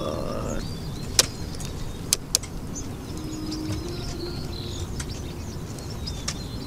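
Outdoor ambience: a steady low rumble of distant traffic, with a passing vehicle fading out in the first half-second. A few sharp clicks, faint bird chirps, and a dove cooing a few seconds in.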